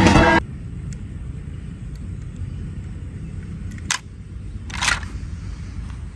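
Film soundtrack music and voices cut off about half a second in, leaving a steady low rumble of wind and handling on a phone microphone. About four seconds in comes a sharp click, then a brief rattle, as plastic toy vehicles in a basket are handled.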